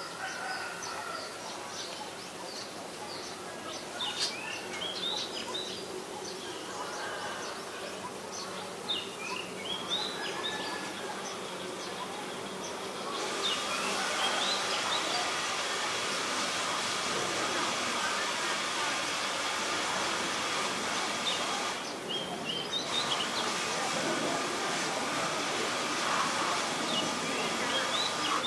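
Small birds chirping in short rising notes. About halfway through, a steady high insect-like buzz sets in, drops out for a moment near the end, then resumes.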